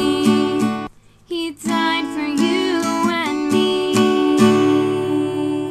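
Acoustic guitar song with a woman singing, with a short pause about a second in, then settling on long held notes near the end.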